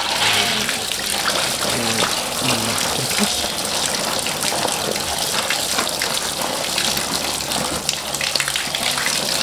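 Water from a garden hose pouring steadily into a woven bamboo basket of beans being rinsed by hand, splashing through the weave onto the ground below.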